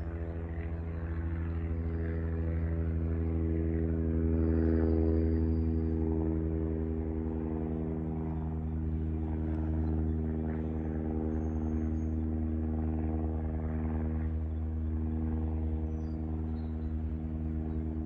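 Class 66 diesel locomotive's two-stroke V12 engine running with a steady, deep drone as the locomotive approaches, growing a little louder about five seconds in.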